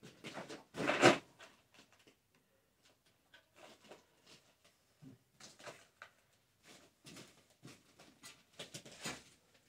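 Irregular knocks and clatters of metal tools and parts being handled, the loudest about a second in.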